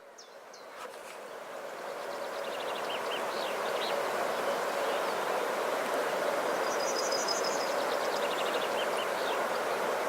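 Steady rushing of a flooding river, swelling over the first few seconds and then holding, with small birds chirping and trilling above it.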